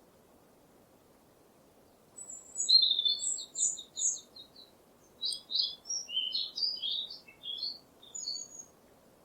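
A small songbird singing two phrases: starting about two seconds in, a fast trill of repeated high notes, then after a short pause a more varied jumble of quick chirps and whistles, over a faint steady background hiss.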